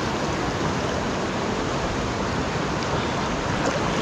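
Strong river current rushing steadily, heard close up at the water's surface as a person wades through it.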